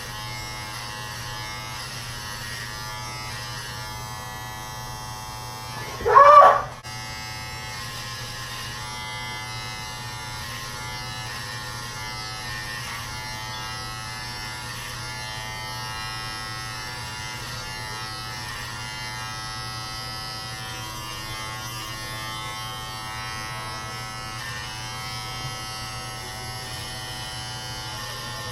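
Electric hair trimmer buzzing steadily while cutting hair close to the scalp. About six seconds in there is one loud, brief cry that rises in pitch.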